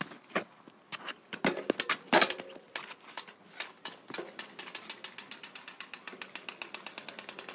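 Playing card held by a clothes peg against a bicycle wheel's spokes, flicked by each passing spoke as the wheel turns. The clicks come slowly and unevenly at first, then speed up into a steady rattle of about eight a second: the homemade "motorbike" noise.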